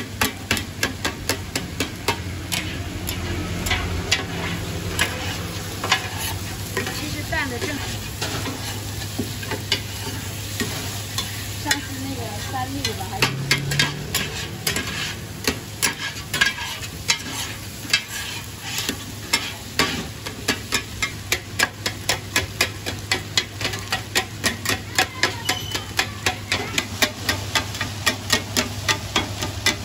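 Kitchen utensil stirring and tapping against a container in a quick, regular rhythm, about two or three strikes a second, over a steady low hum.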